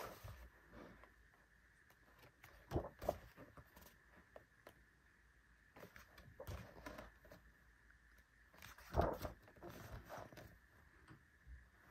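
Quiet paper handling as the pages of a glossy album photobook are turned: scattered soft rustles and light taps, with the clearest ones about three seconds in and again about nine seconds in.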